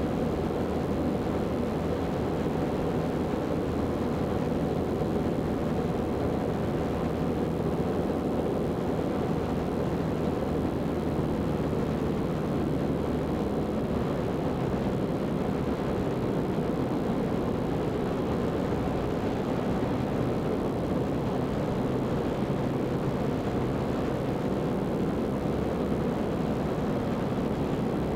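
Zenith CH 750 Cruzer light aircraft in flight: the steady drone of its piston engine and propeller, with rushing airflow noise.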